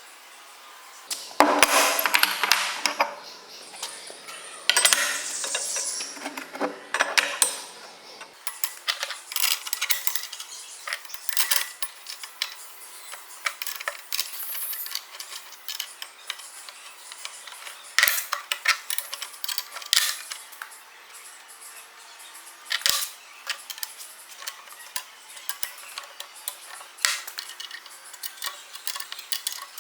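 Steel parts and tools clinking and knocking against each other in irregular, scattered strikes, after a few seconds of denser metal scraping and rattling near the start.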